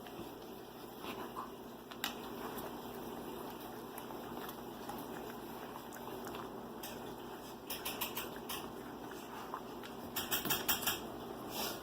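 A dog nosing through a fabric snuffle mat for hidden treats: steady soft rustling, with two short runs of quick clicks, one about eight seconds in and another near the end.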